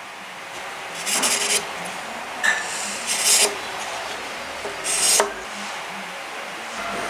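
Chisel paring wood straight down against a clamped guide block: about three rasping, scraping strokes, cutting the square pocket that will take a plug over a dead knot.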